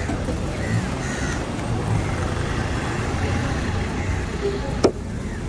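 Outdoor ambience of steady vehicle rumble with crows cawing, and one sharp knock near the end as the knife strikes the wooden cutting board.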